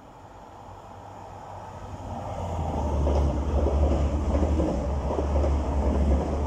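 Diesel multiple unit passenger train approaching and passing close beneath, its low engine drone and wheel rumble building up about two seconds in and staying loud.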